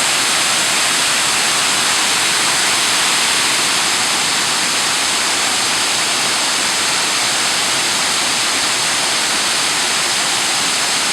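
Waterfall rushing steadily: a loud, unbroken hiss of falling water with no let-up.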